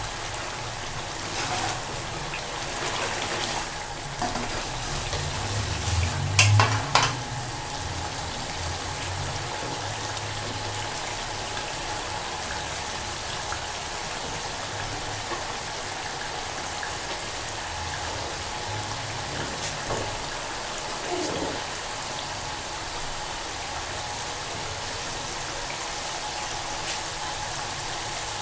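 Chicken masala with yogurt and spices sizzling steadily in a pot as it is fried down (bhuna). A few sharp clatters, loudest about six to seven seconds in.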